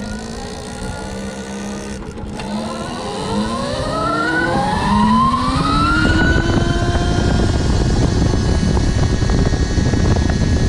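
Electric motorcycle's QS138 mid-drive motor and Fardriver controller whining as the bike pulls away: a steady low hum, then after a couple of seconds a whine of several tones rising together in pitch as it accelerates, levelling off about six seconds in. A rushing noise of wind and tyres builds underneath as the speed rises.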